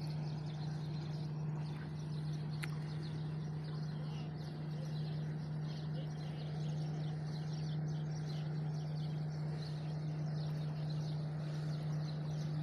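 Steady low drone of boat engines, unchanging in pitch, with birds chirping faintly over it.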